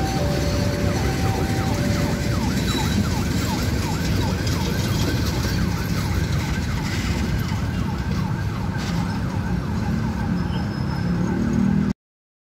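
Passenger train coaches rolling past on the rails with a steady rumble, while a two-tone warning signal alternates high and low for the first two seconds. Through the middle come quick repeated falling squeaks. The sound cuts off suddenly near the end.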